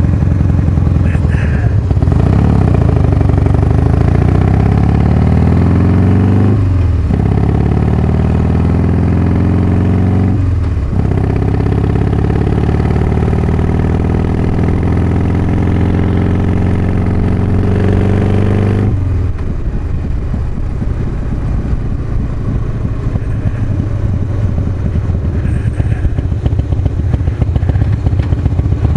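Harley-Davidson Softail V-twin engine with advanced ignition timing, heard through a helmet-mounted microphone. It pulls up through the gears, with two brief breaks for shifts about seven and eleven seconds in. About two-thirds of the way through, the throttle is rolled off and the engine drops to a lower, rougher run.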